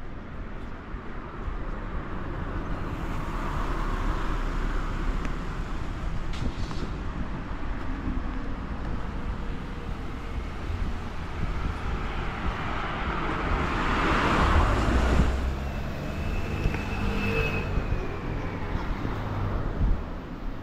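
Road traffic going by, with one vehicle passing close about fourteen seconds in, followed by a brief high-pitched whine.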